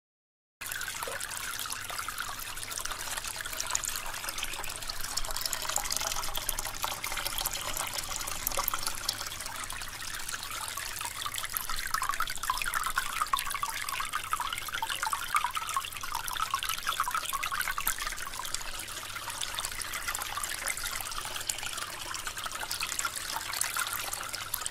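Shallow water running and trickling over pebbles and stones, a steady splashing, bubbling flow that begins about half a second in.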